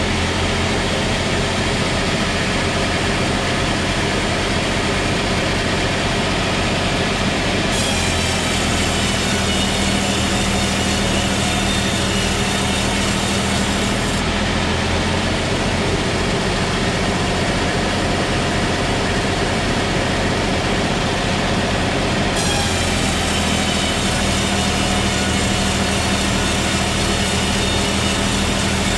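Sawmill saw running steadily while sawing a trembesi (rain tree) log. A high ringing whine comes in twice, about 8 seconds in and about 22 seconds in, and lasts several seconds each time over the steady machine noise.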